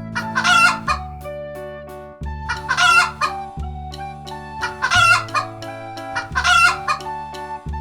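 Chicken sound effect: four short bursts of clucking and crowing calls, each under a second and spaced about two seconds apart, over light children's background music.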